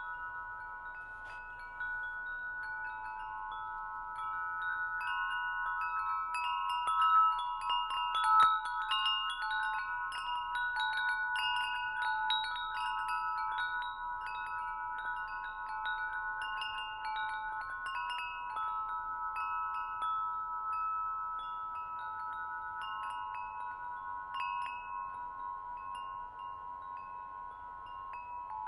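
Wind chimes ringing: several tones hang on throughout while many short, higher strikes fall at random over them. It is loudest about seven to eight seconds in.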